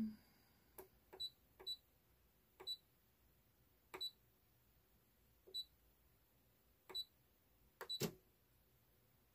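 Short high beeps from a Brother sewing machine's touch-screen LCD, about eight at irregular intervals, each with a light click as the stylus taps a setting: the stitch width and length are being set. A soft thump at the start and another about eight seconds in.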